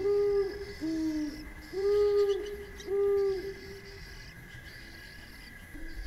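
Deep hooting calls, four in the first three and a half seconds, each about half a second long, then a quieter stretch. A steady high-pitched hum runs beneath.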